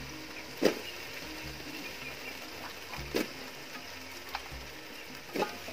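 Handfuls of peeled green banana (matoke) pieces dropped into a cooking pot, landing with three thumps about two and a half seconds apart, the first the loudest.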